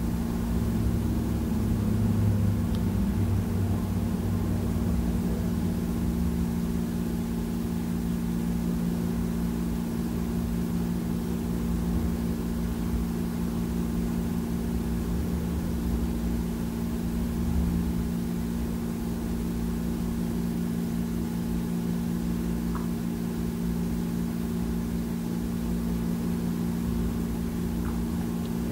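An engine idling steadily, giving a constant low hum that does not change.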